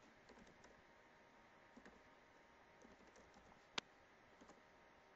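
Faint computer keyboard typing: a few soft, scattered keystrokes, with one sharper click a little before the end.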